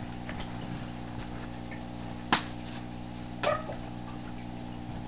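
Steady hum of an aquarium air pump, with a sharp click a little over two seconds in and a softer knock with a short squeak about a second later.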